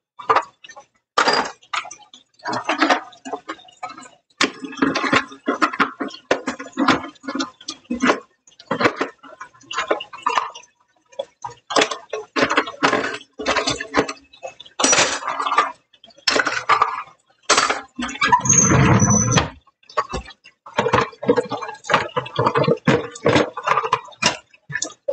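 Dishes and silverware clinking and clattering as they are handled and put away, in many short knocks and clinks. About three quarters of the way through there is a louder, longer rush of noise.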